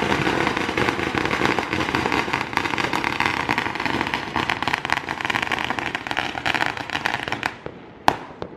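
Firecrackers going off in a dense, rapid crackle of pops that stops suddenly about seven and a half seconds in, followed by one sharper single bang.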